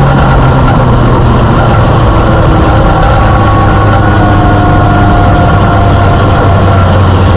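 Mini stock race car's four-cylinder engine heard loud from inside the cockpit, the revs falling slowly and steadily off the throttle.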